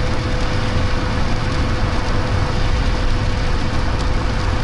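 Steady engine and road rumble heard from inside a moving car, with a constant hum running under it.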